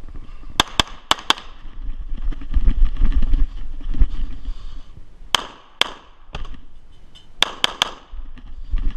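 CZ SP-01 Tactical 9mm pistol firing in fast strings: four quick shots in the first second and a half, two more about five seconds in, and three rapid shots near the end. A low rumble fills the gap between the first and second strings.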